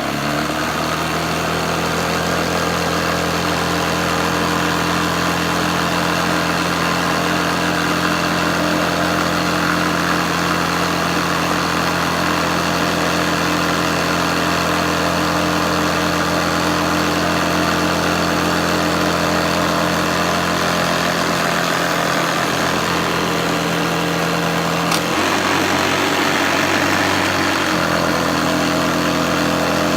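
Hoover Senior Ranger U4002 upright vacuum cleaner's motor running steadily and loudly just after being switched on, a steady hum with a rushing whine over it. About 25 seconds in there is a click and the hum changes pitch.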